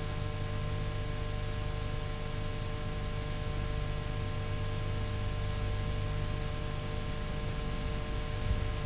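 Steady hiss with a low mains hum on the recording, unchanging throughout, and no other sound standing out.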